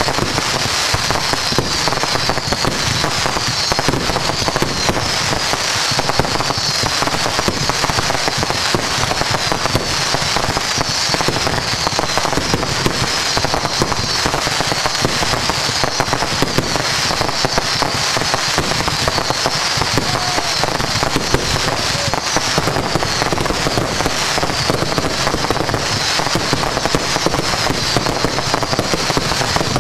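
A fireworks finale barrage: rapid, overlapping bangs and crackling from many aerial bursts at once, with no let-up.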